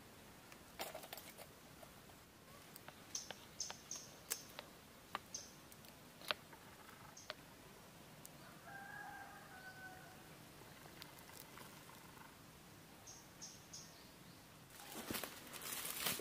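Quiet forest ambience with scattered light clicks and brief high bird chirps. A faint rooster crow about two seconds long comes around the middle. Loud rustling and crackling starts near the end.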